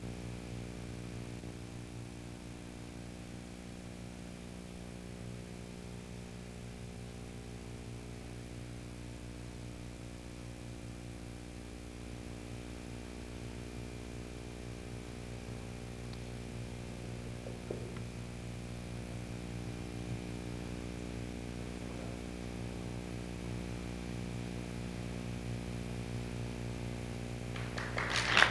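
Steady electrical mains hum with a stack of buzzing overtones. Audience applause breaks out right at the end.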